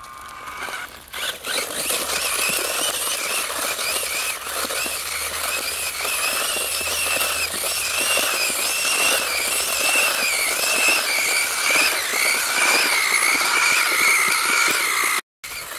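RC stunt car spinning its wheels on concrete: a continuous high-pitched squealing whine that wavers slightly in pitch over a rough hiss, cutting off abruptly near the end.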